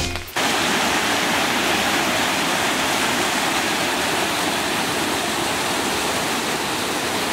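Swollen, muddy forest creek rushing over rocks and fallen branches in a steady whitewater rush. Music cuts off just after the start.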